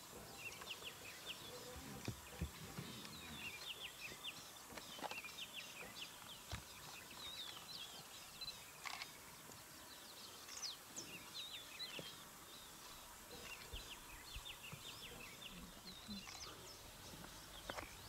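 Faint outdoor ambience with many short bird chirps and calls throughout, and a few soft low thuds.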